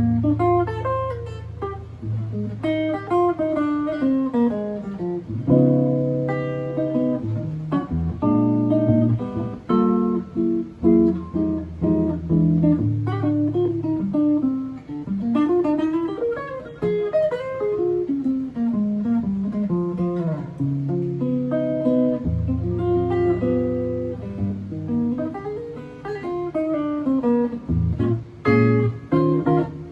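Solo guitar playing an instrumental chorus of a jazz standard, with rising and falling single-note runs over low bass notes and chords.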